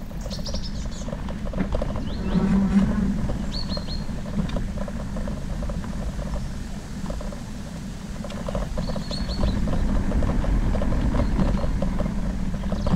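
Ride noise from an e-bike on a dirt trail: a steady low hum and rumble with constant small rattles and knocks from the bike over the ground. Short clusters of high chirps come through about four times.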